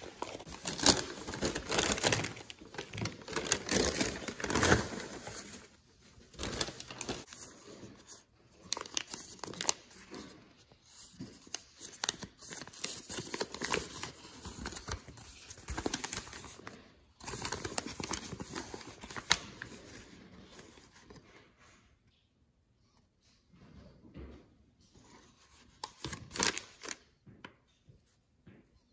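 Paper bag and foil-lined sandwich bag crinkling and rustling as they are handled and opened, in irregular bursts that thin out to a few faint rustles over the last several seconds.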